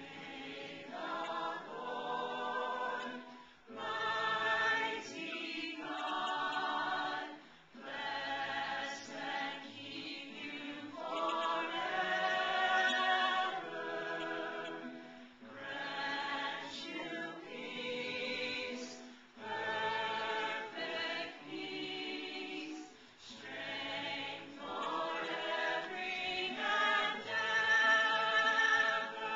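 A small family group singing a blessing of peace in harmony, a cappella, in sung phrases of two to four seconds with short breaths between.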